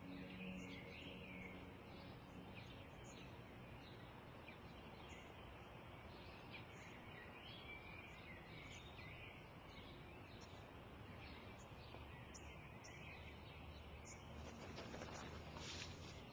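Faint outdoor ambience with birdsong: scattered short chirps and twitters over a soft steady hiss.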